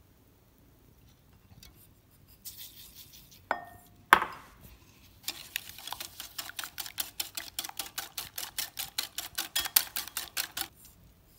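Wire whisk beating eggs and sugar in a ceramic bowl, clinking against the bowl about six times a second for some five seconds. Before it come a brief rustle and two knocks on the bowl, the first with a short ring and the second the loudest sound here.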